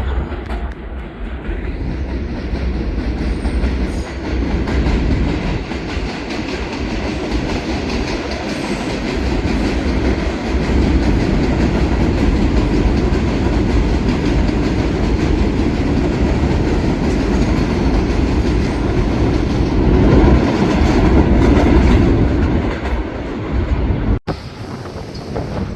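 New York City Subway R211 train passing, its wheels rumbling and clicking over the rail joints. It grows louder over the first seconds, stays loud for most of the pass, then cuts off sharply near the end, leaving a quieter rumble.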